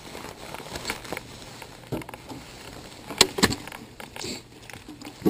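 Handling noises as a cord stringer of caught perch is lowered into a plastic cooler: rustling, small clicks and a couple of sharp knocks about three seconds in.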